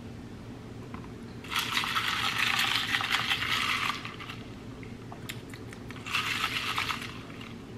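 Iced coffee sipped through a plastic straw from a plastic cup: two crackly slurping sips, the first about two and a half seconds long starting about a second and a half in, the second shorter, about six seconds in.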